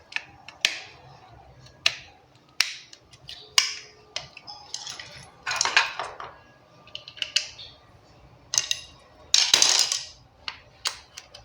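Small plastic and metal parts being handled and fitted together as a refrigerator fan blade is mounted on its replacement fan motor: a series of irregular clicks and knocks, with two longer scraping rattles about halfway through and near the end.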